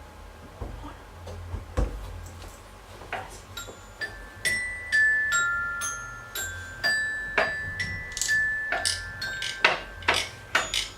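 Live foley: a few light knocks and clicks, then, from about four and a half seconds in, a run of struck notes at a few different pitches, each ringing briefly like a small glockenspiel.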